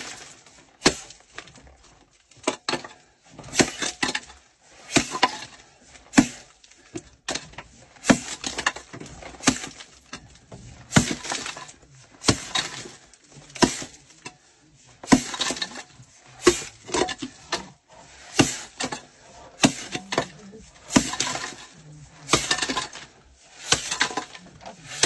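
Short-handled pick striking a coal face again and again, a hard blow every second or two, with coal breaking away and lumps clinking and rattling down between the strikes.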